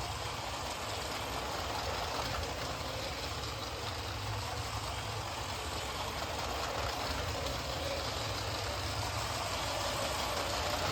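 Lego City Express Passenger Train 60337 running steadily on its track at its fastest remote setting: the electric motor's hum and the rolling of the train.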